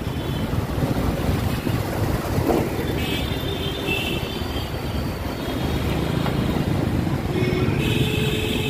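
Road and traffic noise heard from a moving motorbike in city traffic, with wind on the microphone. Other vehicles' horns sound about three seconds in and again near the end.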